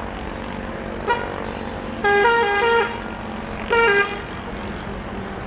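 Train horn sounding three times: a short toot about a second in, a longer blast stepping between two pitches, then a shorter blast. Under it runs the steady rumble of a passing train.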